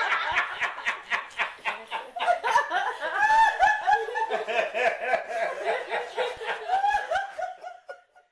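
A group of people laughing in rapid overlapping bursts, dying away near the end.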